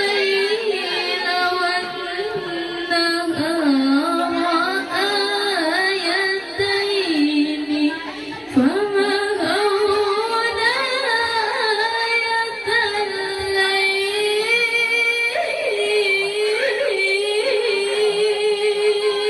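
A woman's solo voice in melodic Quran recitation (tilawah), holding long notes and ornamenting them with quick melismatic turns, with brief pauses for breath.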